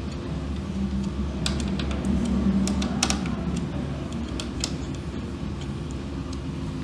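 A few light clicks and taps of small parts being handled on a workbench over a steady low hum.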